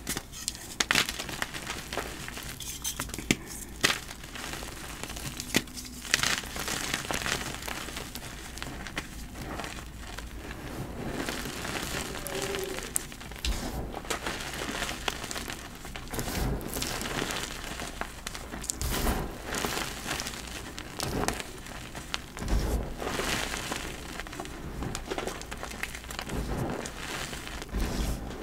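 Blocks of dyed gym chalk crunching and crumbling: a dense, continuous run of crisp crackles with a few sharper snaps.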